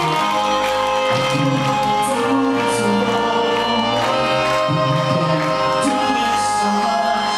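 Live band playing loud amplified music, with violin and electric bass under sustained held notes and a few brief cymbal-like splashes.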